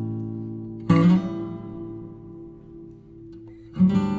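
Background music on acoustic guitar. A chord struck about a second in rings and slowly fades, and fresh strummed chords start near the end.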